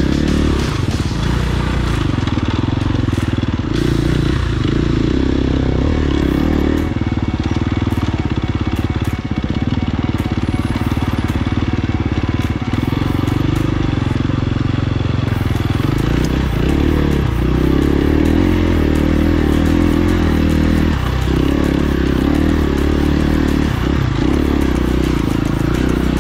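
Off-road vehicle engine running steadily on a trail ride, its pitch rising and falling again and again with the throttle.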